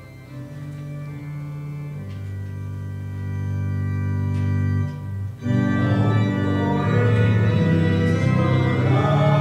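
Church organ playing sustained chords that slowly swell. It breaks off briefly about five seconds in, then comes back louder and fuller.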